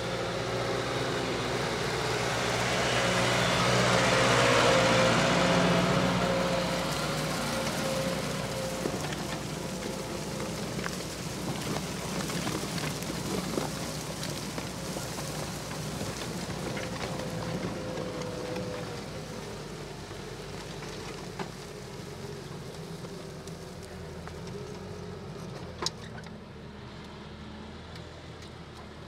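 Tractor engine running as it passes close by, loudest about five seconds in and then fading into a steady, quieter drone, with a few sharp clicks.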